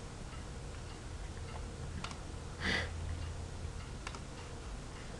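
Faint computer mouse clicks over a low steady hum: single clicks about two seconds in and about four seconds in, with a brief soft noise between them.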